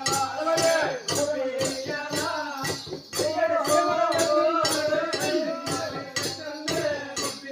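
Tamil folk dance music: a voice sings a wavering melody over a steady beat of rattling percussion strokes.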